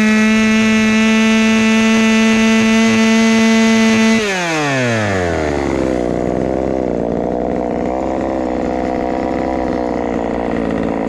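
Ported Craftsman 2.2 36cc two-stroke chainsaw with auxiliary exhaust ports held at full throttle at a steady high pitch, then released about four seconds in, dropping back to idle.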